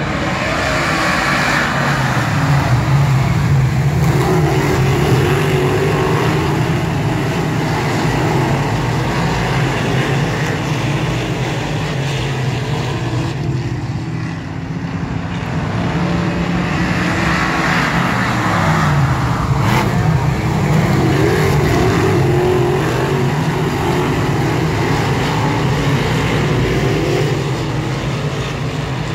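A pack of dirt modified race cars racing around the oval with their V8 engines running hard together. The engine noise swells twice as the field passes, about two seconds in and again a little past the halfway mark, with a brief lull between.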